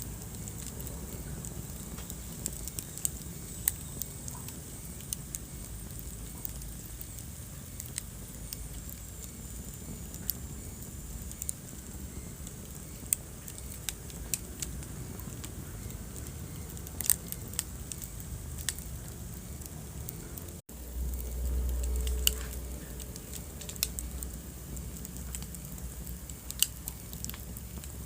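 Wood fire in a fireplace crackling, with frequent sharp pops and snaps over a steady low rumble. About two-thirds through, the sound drops out for an instant, and a louder low rumble follows for a couple of seconds.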